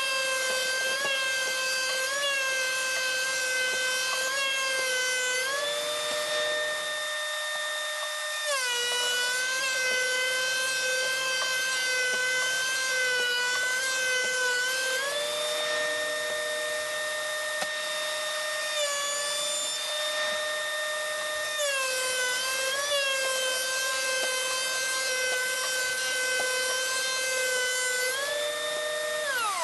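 Benchtop thickness planer running: its motor whine drops in pitch each time a mulberry board feeds through the cutterhead and rises again as the board clears, three passes in all. Just before the end the motor is switched off and winds down.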